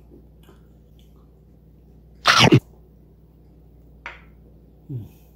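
A person sneezes once, loud and sudden, a little over two seconds in. Near the end come a short sharp breath and a brief low hum that falls in pitch.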